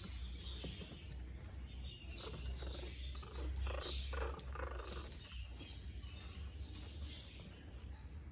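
Young Chihuahua puppies grunting and whimpering as they crawl and nuzzle at their mother, a cluster of short cries about two to five seconds in, over a low steady hum.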